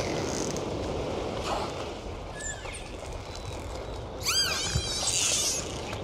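Dolphins whistling underwater: a few short rising-and-falling whistles, the loudest a burst of arching whistles about four seconds in, followed by a warbling high chatter, over a steady underwater noise.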